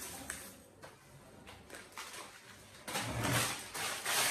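Rustling and handling of a plastic spaghetti packet and dry spaghetti strands, faint at first with a few light scrapes, then louder and denser from about three seconds in.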